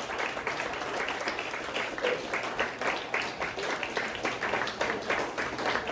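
Small audience applauding: many hands clapping in a dense, uneven patter after a stand-up set ends.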